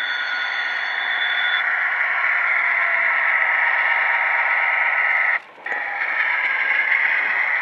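Sound decoder in an MP15 model diesel switcher playing engine sound through its small speaker, a tinny, hissy steady drone as the locomotive runs. A thin high tone sounds through the first second and a half, and the sound briefly cuts out about five and a half seconds in.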